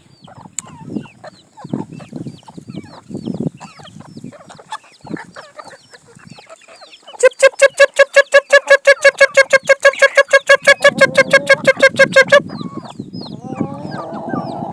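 Chickens clucking and chicks peeping as the flock feeds on brown maize. About halfway through, a loud, rapid, evenly repeated call of about five pulses a second starts and runs for some five seconds, then stops suddenly.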